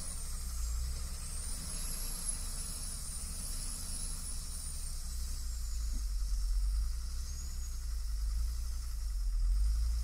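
Motor grader's diesel engine running with a steady low rumble as it plows through snow, a thin high whine wavering up and down in pitch over it.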